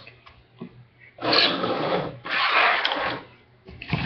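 Rubbing and scraping handling noise close to the microphone as things are slid around on a table, in three long strokes of about a second each.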